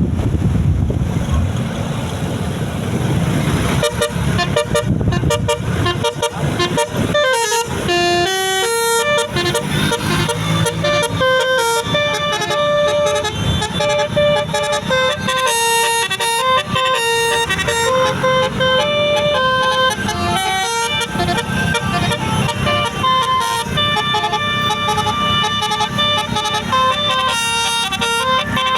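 Indonesian bus 'telolet basuri' multi-tone musical horn playing a melody: a long run of steady horn notes stepping up and down in pitch, over the low running of the bus's engine.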